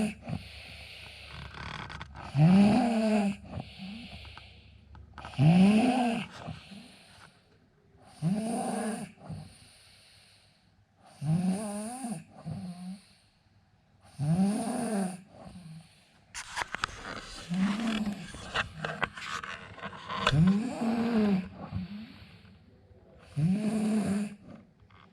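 A man snoring in his sleep: a drawn-out, pitched snore about a second long on each breath, repeating steadily about every three seconds. A spell of clicking and rustling comes between snores about two-thirds of the way through.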